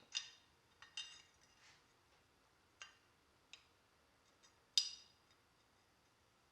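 Small metal parts clinking and tapping: about seven sharp, ringing strikes at uneven intervals, the loudest nearly five seconds in.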